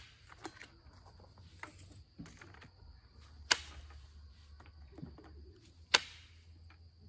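Light knapping strikes on an Onondaga chert point: two sharp clicks about two and a half seconds apart, with fainter ticks between. The blows are kept light because of a crack in the stone's base. A faint steady high tone runs underneath.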